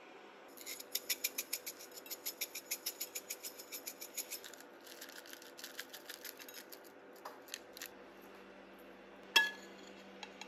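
A rapid run of small, crisp clicks, about seven a second for some four seconds, then fainter scattered clicks. Near the end, a metal spoon clinks once against a ceramic plate with a short ring.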